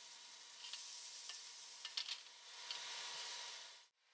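Green beans sizzling as they sauté in olive oil in a skillet, with a few light clicks in the pan; the sizzle cuts off suddenly near the end.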